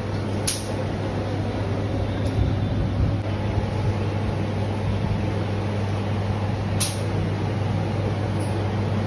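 A steady loud drone with a low hum under it, as of heavy kitchen machinery, with two sharp clinks about six seconds apart of a steel cup knocking against a large aluminium biryani pot.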